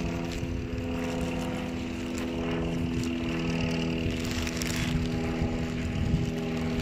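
A steady engine hum, a motor running at an even speed. It weakens in the second half.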